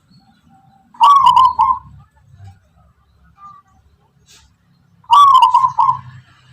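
Zebra dove (perkutut) of the local Tuban type cooing: two short phrases of rapid, pulsing coos, one about a second in and another about four seconds later.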